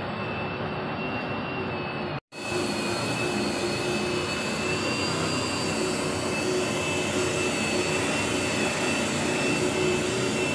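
A machine running steadily with a high whine over a rushing hiss. The sound cuts out completely for a moment about two seconds in.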